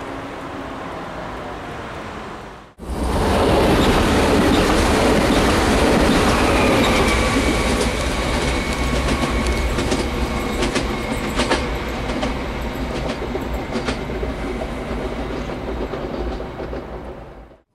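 Stadler FLIRT electric multiple unit passing at speed: loud rolling noise of wheels on rail, with a high whine that falls slightly in pitch and scattered clicks of the wheels over the track, fading as the train draws away. Before it, for about three seconds, a steady distant city traffic hum.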